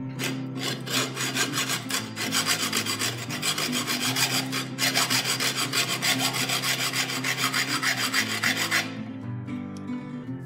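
Hacksaw cutting through a metal bolt with quick back-and-forth rasping strokes, stopping about nine seconds in.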